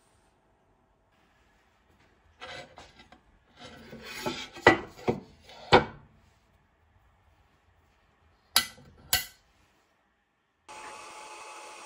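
Parts being handled and fitted together: rubbing and scraping with several sharp knocks, then two sharp clicks. Near the end a steady whir starts abruptly.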